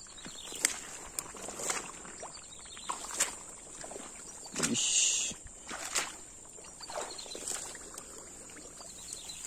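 Footsteps through tall wet grass and mud, about one step a second, with the grass brushing against legs; a louder rustling swish comes about five seconds in. A steady high whine runs underneath.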